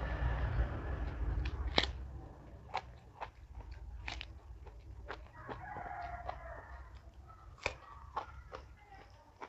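Close-up chewing and crunching of raw vegetables, with sharp mouth clicks and smacks throughout, loudest in the first two seconds. A drawn-out animal call, possibly a rooster crowing, sounds in the background for about a second and a half a little past halfway.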